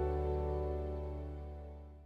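Soft instrumental background music holding its last chord and fading out, the end of a piece.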